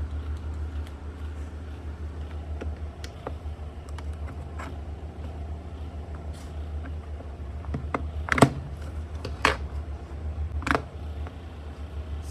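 Light clicks and taps of a Bluetooth speaker's plastic casing being handled and prised open, with three sharper clicks about a second apart in the second half, over a steady low hum.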